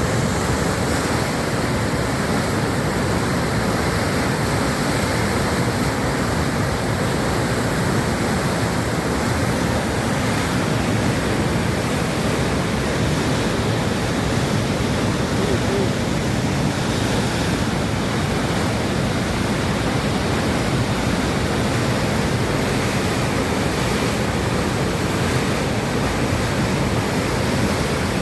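A waterfall: the steady, unbroken rush of falling water, unchanging throughout.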